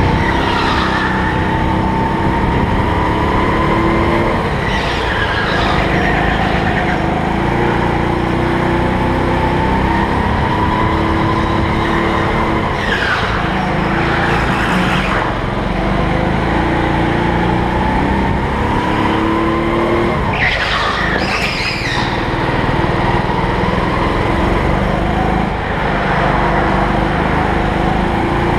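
Go-kart engine running hard, its pitch climbing and then dropping again in a repeating cycle of acceleration and braking, with several short bursts of tyre squeal through the corners.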